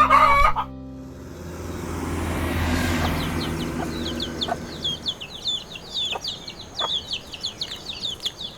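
Chicks peeping: many short, high chirps, several a second, with each note sliding down, starting about three seconds in. The tail of the children's song fades out under them in the first few seconds.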